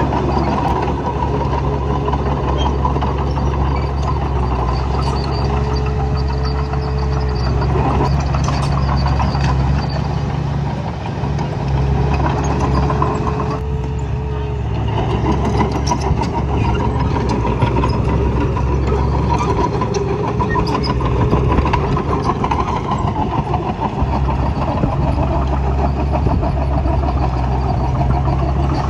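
Heavy diesel engine of earthmoving machinery running steadily, with a continuous rattling clatter over it and a faint whine that comes and goes.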